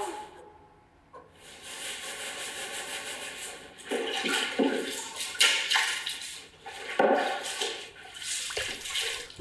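Cloth being washed by hand in water: irregular sloshing and splashing strokes that get heavier from about four seconds in.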